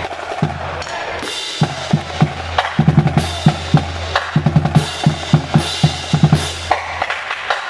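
Marching band drumline playing a cadence: bass drums and snare drums beating a quick, steady rhythm that picks up about a second and a half in, with sharp crashes every second or so.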